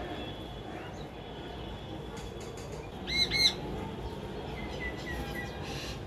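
Myna giving two quick, loud arching calls about three seconds in, followed by a few fainter notes near the end, over a steady low background hum.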